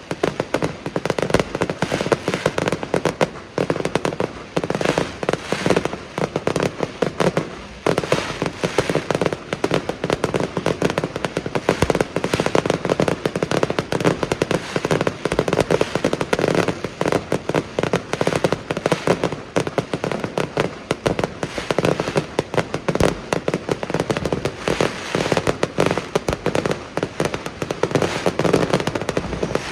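Fireworks display: a dense, continuous barrage of bangs and crackling explosions, many per second.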